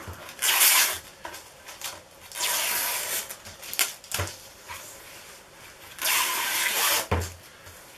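Light polyester peel ply being ripped off a cured carbon-fibre composite tube: three short tearing rips, the last and longest about a second, with a click and a knock between them. This thin peel ply tears apart in strips rather than coming away in one piece.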